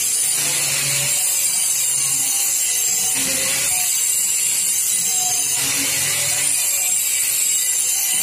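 Running machinery in a metal fabrication shop: a constant high hiss, with a low hum that comes and goes every second or two.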